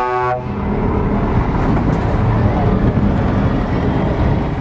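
Scania tractor unit pulling a container trailer drives close past, its diesel engine running and tyres rolling in a steady loud low noise. A short high toot sounds right at the start.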